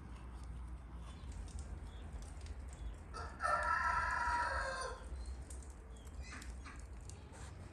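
A rooster crows once, a single call of about a second and a half near the middle, ending on a falling note. There are faint scattered ticks and low background noise beneath it.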